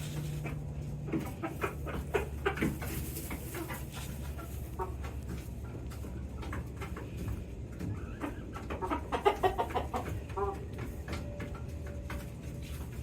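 Chickens clucking, with a denser run of clucks about nine to ten seconds in, over a steady low hum and scattered clicks.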